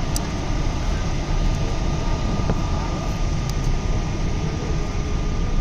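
Steady rumbling noise of a Boeing 777 airliner heard from inside the cabin, with a thin steady high tone running through it.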